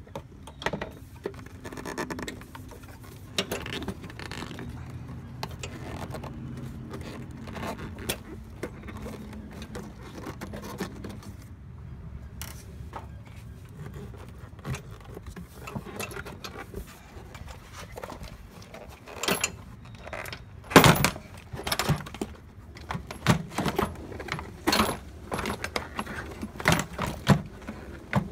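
Honda Civic's plastic airbox and intake duct being worked loose and pulled forward by hand: scattered plastic clicks, knocks and scrapes, with a run of louder knocks in the second half.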